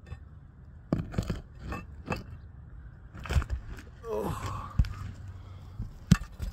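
A string of sharp scrapes, knocks and crunches from handling asphalt roof shingles, with one short falling squeak near the middle.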